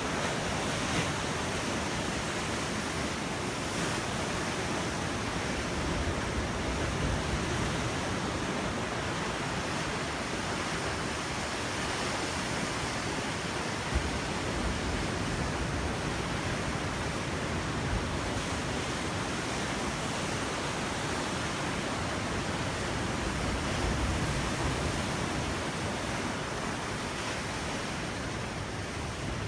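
Ocean surf washing onto a beach: a steady, unbroken rushing hiss of breaking waves.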